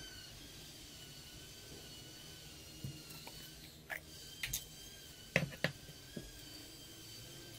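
A few light knocks and clicks, about six in two to three seconds, as a small plastic glue pot is handled, opened and set down on a work board, over a faint steady high whine.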